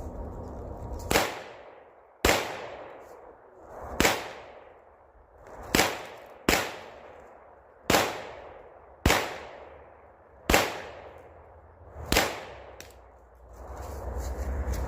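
Nine single shots from a 9mm AR-style firearm, fired one at a time at an uneven pace about one to two seconds apart, each shot followed by a short echo that fades away.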